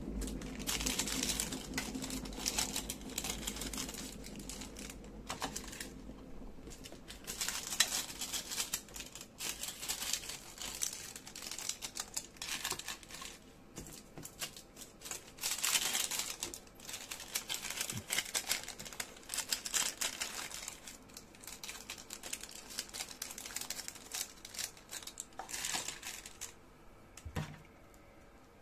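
Rummaging through packets: irregular rustling and crinkling of plastic with scattered clicks and knocks, coming in spells with quieter gaps between. A low hum runs under the first few seconds and then fades.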